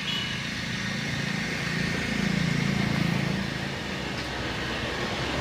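A motor vehicle engine running steadily, growing a little louder between about two and three and a half seconds in, over background street noise.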